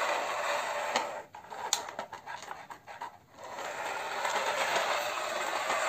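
Plastic toy tracked excavator pushed by hand over a rough floor, its tracks and wheels rattling and grinding as it rolls. It stops about a second in, with a few clicks, and rolls again from about three and a half seconds in.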